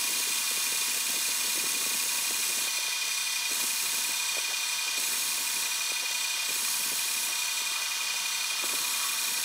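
Metal lathe running steadily while a lathe tool turns a 60-degree point on a piece of W1 tool steel held in the chuck. The sound is an even, high-pitched whine with a hiss of cutting.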